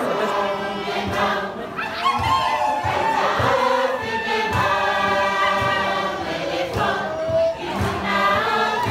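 Tuvaluan fatele: a large seated chorus singing together, with a steady low beat underneath.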